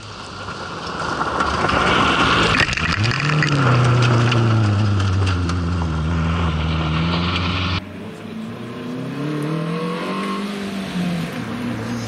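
MG ZR rally car's engine revving hard as the car approaches and passes, its pitch rising and falling through the gear changes, with loose gravel crackling under the tyres. About 8 s in, it cuts abruptly to the same car more distant, the engine pitch again rising and falling.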